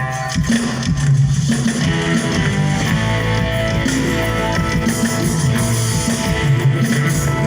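Live band music over a stage sound system, with guitar prominent.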